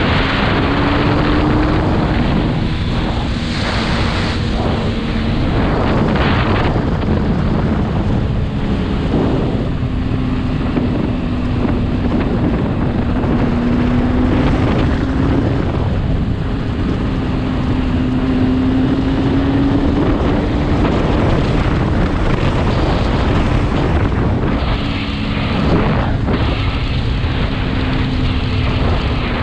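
Motorcycle engine running at cruising speed, its note rising and falling gently, under heavy wind noise on the microphone.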